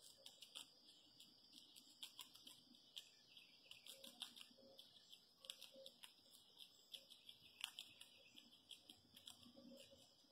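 Gray squirrel chewing peanuts and sunflower seeds: faint, irregular crunching and cracking clicks, several a second.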